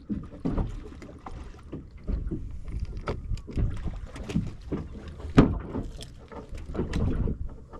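Water slapping against a fishing boat's hull, with irregular knocks and clatter; one sharper knock a little past halfway.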